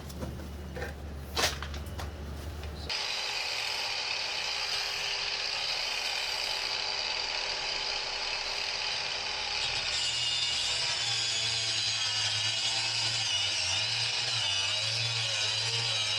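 A few knocks, then from about three seconds in a power tool runs steadily, cutting board.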